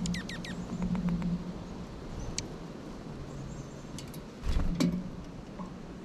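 Small songbirds calling: a fast run of four high, down-slurred chips at the start, a few fainter short notes just after, and one more high note at about two and a half seconds. A gust of wind rumbles on the microphone at about four and a half seconds, with a few clicks.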